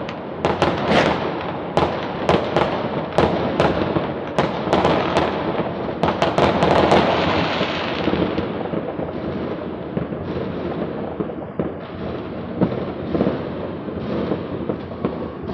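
Many fireworks and firecrackers going off at once: a continuous crackling rumble of distant explosions with frequent sharp bangs, which thin out after about eight seconds.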